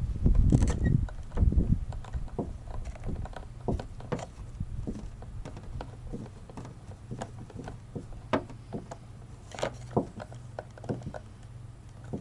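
Hand-handling of a car side mirror's plastic housing and a screwdriver: a heavy handling rumble in the first two seconds, then scattered light clicks and taps, as the housing screws are driven back in.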